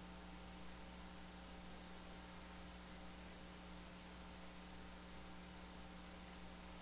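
Faint, steady electrical hum over near silence: room tone.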